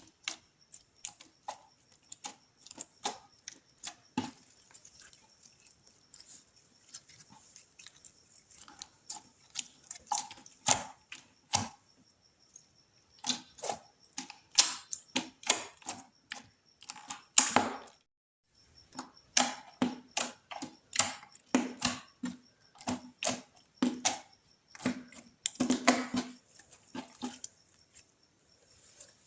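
Slime being squeezed and poked, making a run of irregular sticky clicks and pops, with a short silent break about eighteen seconds in.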